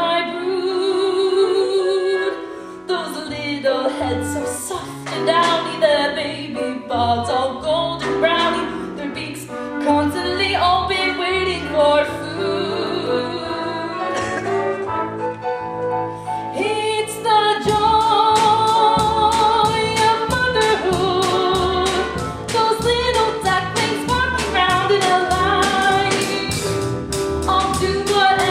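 A woman singing a musical-theatre song over instrumental accompaniment. A steady beat comes in about two-thirds of the way through.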